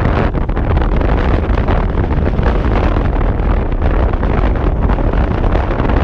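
Strong wind buffeting the microphone: a loud, steady rumble with gusty rustling over it.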